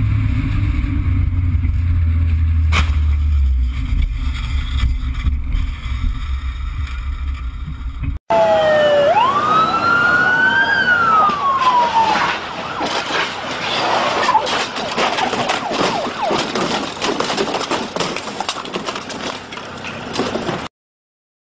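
Steady low vehicle rumble, then an abrupt cut to an emergency-vehicle siren sweeping up and down over loud noise. After a few seconds the siren gives way to rough, clattering noise, and the sound cuts off shortly before the end.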